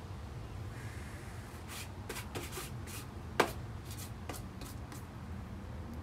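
Irregular drips of rain tapping, with one louder tap about three and a half seconds in, over a steady low rumble.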